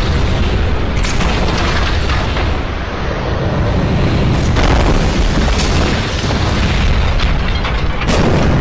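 Explosion sound effects from an animated battle: heavy blasts over a continuous low rumble, with music underneath and sharp impacts about a second in, a cluster in the middle, and another near the end.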